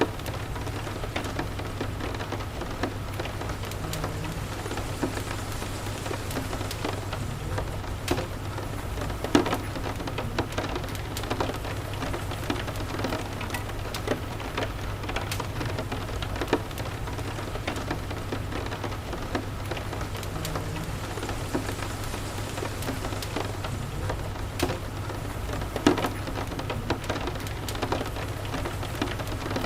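Steady rain, mixed with scattered sharp crackles and pops of a wood fire burning in a fireplace, over a low steady rumble. Two louder pops come about a third of the way in and again near the end.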